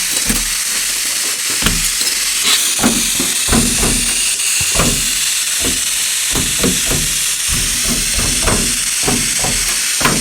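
Spirit box radio scanning: a steady, loud static hiss broken several times a second by short, clipped fragments of sound as it sweeps through stations.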